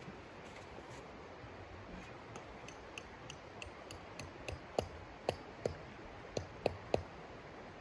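A series of sharp knocks of hard objects struck together, about three a second, louder in the second half, over the steady rush of a creek.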